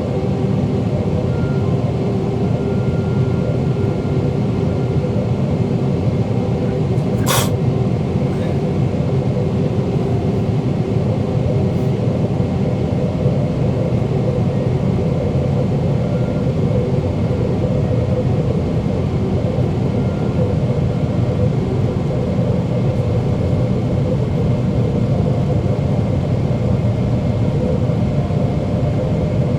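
Steady cabin roar of a Boeing 777-300ER in flight: airflow noise with a steady hum from the GE90 turbofan engines. One sharp click about seven seconds in.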